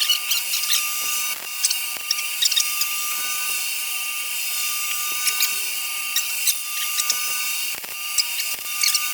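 Stick-welding arc crackling and hissing steadily, with sharp pops scattered throughout and a faint steady whine underneath.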